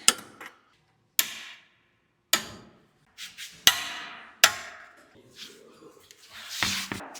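Sharp metallic knocks during work on car suspension and differential parts: about five separate strikes roughly a second apart, each ringing briefly, then a longer scraping rasp near the end.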